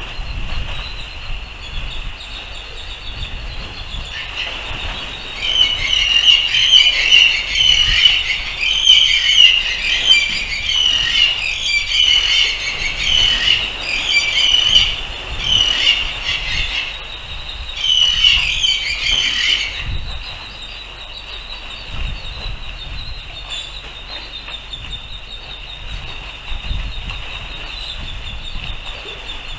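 Many small birds chirping rapidly together, loudest from about five to twenty seconds in, over a steady high-pitched tone and a low rumble.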